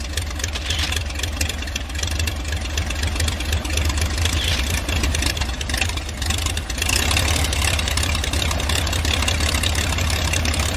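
Aircraft engine droning steadily, heard from inside the cockpit with rushing airflow over it. It gets a little louder about seven seconds in.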